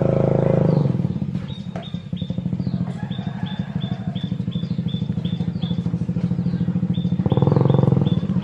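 A small engine, like a motorcycle's, running close by with a fast, even pulse, getting louder near the end. Short high chirps repeat about four times a second through most of it.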